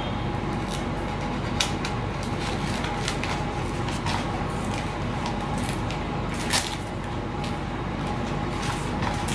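Steady background hum with scattered light clicks and scratches from a hobby knife and hands working on a laminated foam model-aircraft wing.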